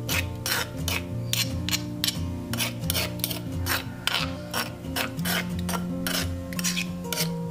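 Metal spoon scraping and stirring against a stone mortar as chili paste is mixed, about two to three scrapes a second, over background music.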